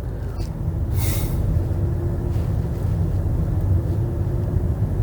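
Steady low rumble of a car cabin on the move, engine and road noise heard from inside the taxi, with a short hiss about a second in.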